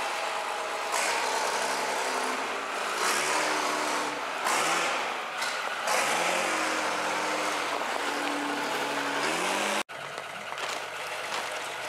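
Fiat-Allis wheel loader's diesel engine revving up and down repeatedly, its pitch rising and falling several times. Near the end the sound cuts off sharply for an instant, then the engine runs steadily.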